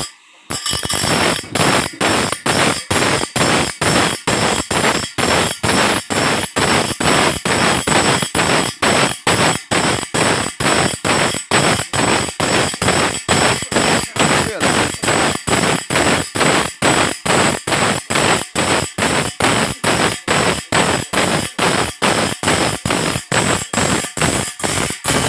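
Bench grinder's abrasive wheel grinding the teeth of a large saw blade, a harsh grating noise broken into about two even pulses a second as each tooth is pressed to the wheel in turn.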